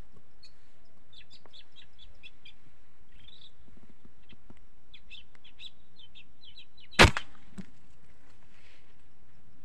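Small birds chirping in short high notes, then about seven seconds in a single loud air rifle shot with a brief ring-down.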